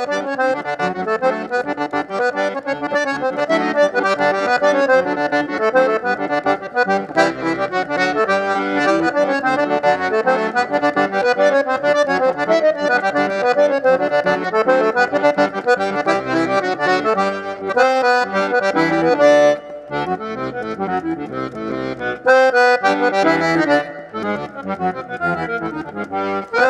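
Accordion (sanfona) playing music: a run of quick notes over held chords, with a couple of brief breaks in the phrase in the latter part.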